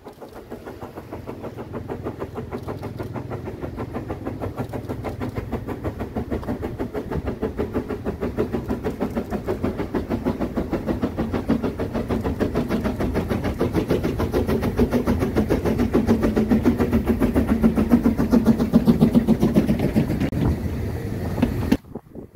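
Saxon VI K narrow-gauge steam locomotive 99 1715-4 chuffing in quick, regular exhaust beats as it approaches hauling its train. The beats grow louder as it nears, then cut off suddenly near the end.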